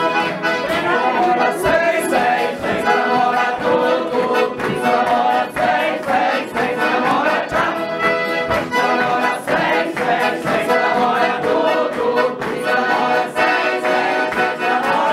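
A German-style bandinha dance band playing, with accordion and brass over a steady beat, and singing.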